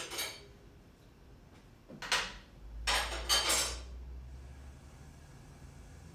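Heavy cast-iron pot handled on a gas range: a short scrape at the start, a louder clatter of metal about two seconds in, then a quick run of clatters a second later, over a low rumble lasting about two seconds.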